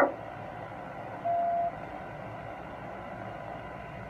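A sudden sharp knock right at the start, then a single steady electronic beep about half a second long a little over a second in, over a steady low hum.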